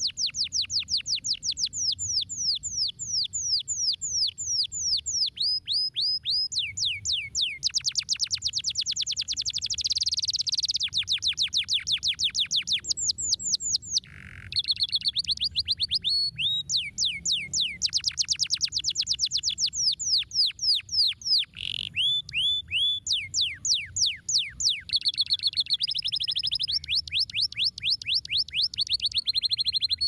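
Domestic canary singing a long, rapid song of high trills, each a fast run of notes sweeping down in pitch, switching from one trill to the next every second or two, with a brief break about fourteen seconds in.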